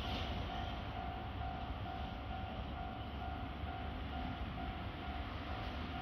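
Railway level-crossing warning bell sounding its repeated electronic ding at about two strokes a second, warning of an approaching train, over a steady low rumble and hiss.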